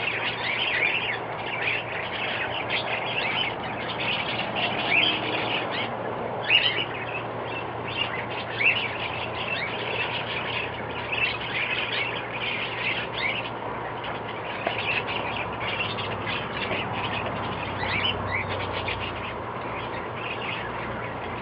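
Many birds chirping and calling over one another in a continuous, dense backyard chorus of short, quick notes.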